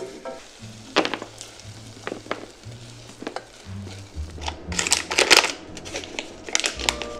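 Pecans cooking down in sugar syrup, sizzling as a spatula stirs and scrapes them around a stainless steel saucepan, then a run of louder scrapes about four to five seconds in as the glazed nuts are scraped out of the pan onto a cutting board. Soft background music with a steady bass runs underneath.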